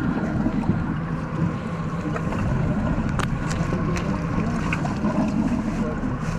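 Steady low rumble of a small boat on open water with wind buffeting the microphone, and a few light clicks midway through from handling crab bait and tackle.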